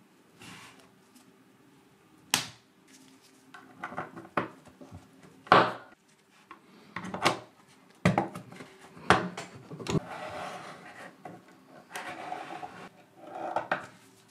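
3D-printed plastic catapult parts being fitted together by hand: scattered sharp clicks and snaps as pieces press into place, with stretches of plastic sliding and scraping against plastic in between.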